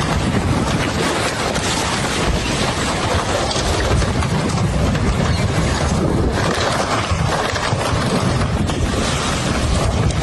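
Floodwater rushing steadily past, a loud continuous wash of water noise with a deep low rumble.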